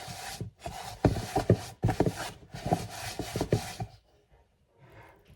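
Hand rubbing rice flour into the sides and bottom of an oval banneton proofing basket: several rough, scratchy strokes that stop about four seconds in.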